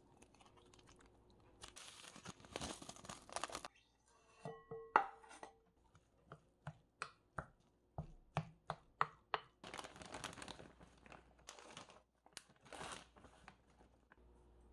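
Kitchen food-prep sounds: a plastic seasoning sachet crinkling and tearing, then a wooden spoon knocking and scraping against a glass mixing bowl in a run of sharp taps as rice and shredded cabbage are stirred.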